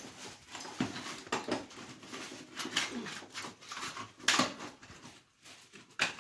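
Handling noises as a TV wall-mount kit and its plastic parts pouch are gone through: irregular rustles and knocks, the loudest about four seconds in.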